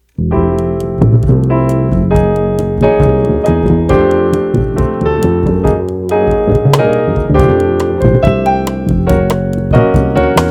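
Jazz trio of keyboard, bass and drums starting a tune with a sudden entry a fraction of a second in: keyboard chords over a bass line, with a steady run of sharp hits on top.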